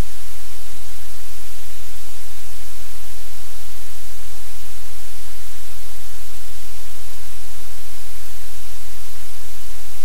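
Loud, steady static hiss over a low electrical hum, unchanging throughout: noise on the live camera's audio feed.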